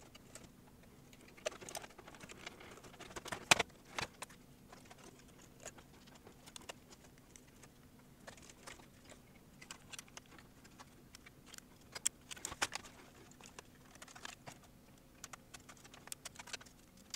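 Irregular small clicks, taps and knocks of plastic and metal parts being handled and fitted by hand as a VCR tape-deck mechanism is reassembled, the sharpest knock about three and a half seconds in and another cluster of clicks around twelve seconds.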